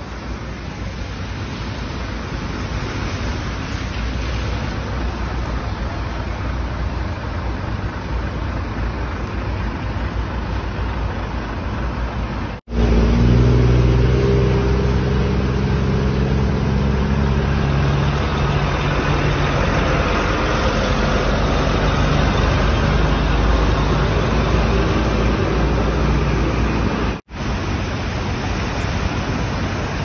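Cars driving through shallow floodwater, their tyres swishing and throwing up spray. After a cut about 13 seconds in, a large truck passes close through the water, its engine running loudly under the splashing, and this is the loudest part.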